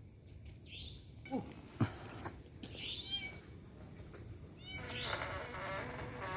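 Animal calls at night: several short chirping calls and a couple of falling cries, over a steady high-pitched insect drone, with a buzzy call that rises about five seconds in.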